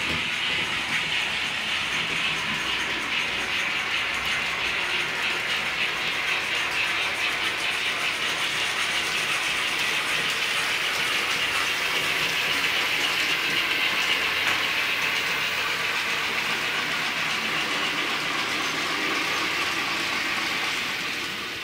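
TT-scale model trains running on the layout track: a steady whir of small locomotive motors and wheels rolling over the rails.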